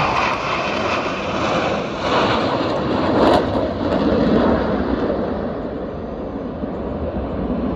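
Jet engine noise from a low pass by a formation of fighter jets: a broad rushing sound that swells around the middle and then eases off as the jets pull away.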